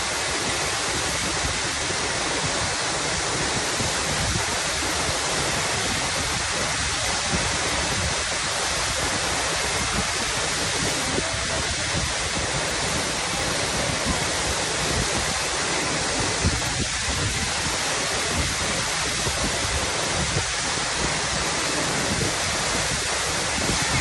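Waterfall pouring into a rock pool: a loud, steady rush of falling water that never lets up.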